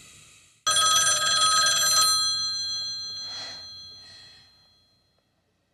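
Corded landline telephone bell ringing: it starts abruptly about a second in, rings loud for over a second, then dies away over the next few seconds.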